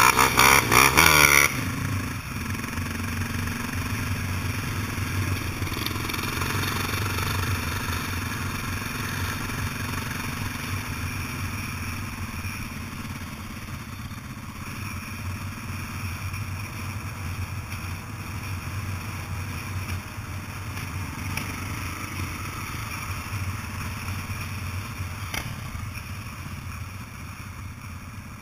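Dirt bike engines heard from a rider's helmet camera on the move: a loud burst of revving in the first second and a half, then a steady engine drone that eases off slightly as the ride goes on.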